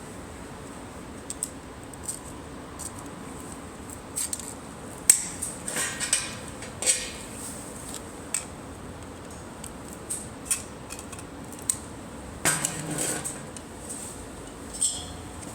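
Short, sharp metallic clicks and clinks, about ten of them at irregular intervals with a longer clatter about two-thirds of the way through, over a steady hum.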